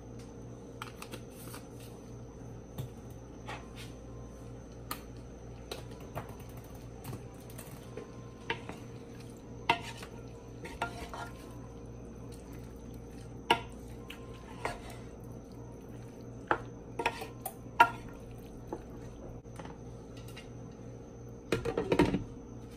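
Wooden spoon stirring chicken and vegetables in a square copper-coloured pan, giving scattered knocks and scrapes against the pan, over a steady hum. Near the end a glass lid clatters onto the pan in a quick run of knocks, the loudest sound here.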